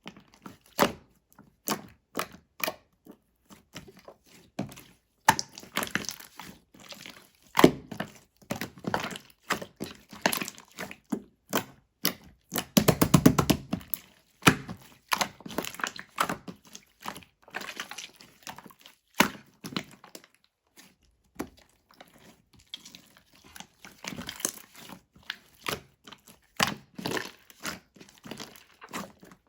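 Mint slime being squished and pressed by hand, making irregular sticky clicks and crackling pops, with a few heavier squelching clusters.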